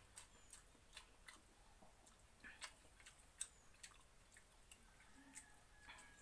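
Faint eating sounds: chewing and small wet smacks, with scattered clicks as fingers mix watery rice in a steel pot.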